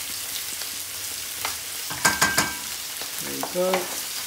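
A wooden spoon stirs toasted moong daal and spices in a heavy pot, over a steady sizzle of oil frying. About halfway through come three or four quick sharp knocks, and near the end a short pitched sound.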